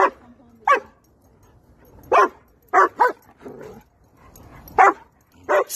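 A dog barking in short, sharp barks at play, about seven of them in irregular groups, each dropping in pitch.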